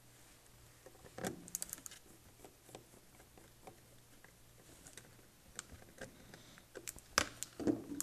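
Light scattered clicks and taps of a hand screwdriver and fingers on an HP Chromebook 11 G5's plastic case and LCD hinge as the hinge screws go back in and the lid is handled. A few sharper clicks come near the end.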